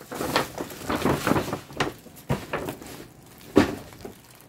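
Plastic wrapping and bags rustling and crinkling in irregular handfuls as a handbag in a plastic cover is lifted out of a paper shopping bag, with one sharp knock about three and a half seconds in.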